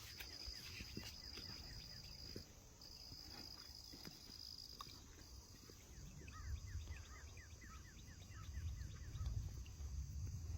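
Faint outdoor insect trilling: a steady high-pitched whine that breaks off twice and resumes. In the second half comes a run of quick, short chirps, and a low rumble rises near the end.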